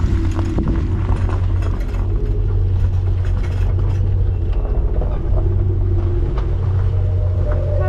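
Steady low mechanical rumble with scattered clicking and rattling.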